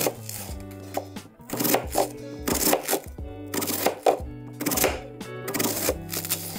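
Kitchen knife slicing an onion on a plastic cutting board, a series of sharp cutting strokes coming at uneven intervals, with background music underneath.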